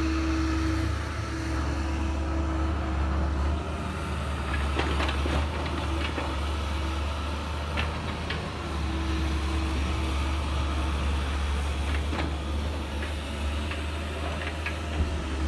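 Compact excavator's diesel engine running steadily as a low hum, with a few sharp clicks about 5, 8 and 12 seconds in.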